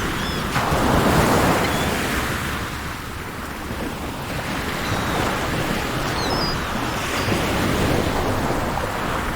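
Sea surf breaking and washing in, swelling about half a second in and building again after the middle, with a few faint high bird chirps near the end.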